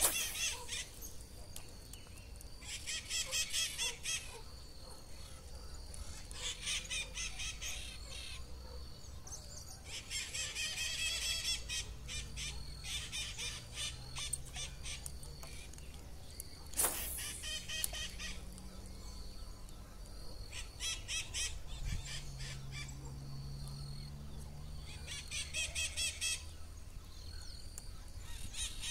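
Birds calling around a lake: about six bursts of fast, repeated high notes, each a second or two long and a few seconds apart, with a single sharp click about halfway through.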